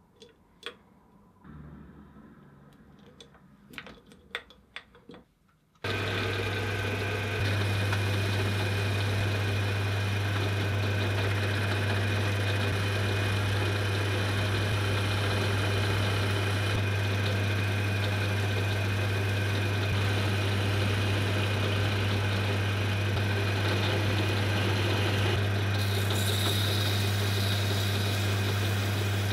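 A few light clicks and taps, then about six seconds in an electric machine motor switches on and runs steadily with a strong low hum and a noisy whir; a higher hiss joins near the end.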